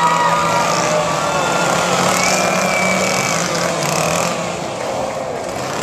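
Chainsaw engines running loudly and steadily, with some revving.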